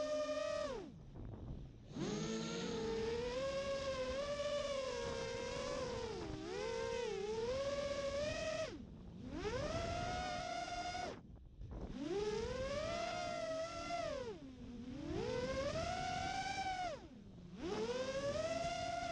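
FPV quadcopter's 2300KV brushless motors spinning two-blade DAL Cyclone 5050C props, a whine that rises and falls in pitch with the throttle. It drops away briefly four times as the throttle is chopped and then comes back up.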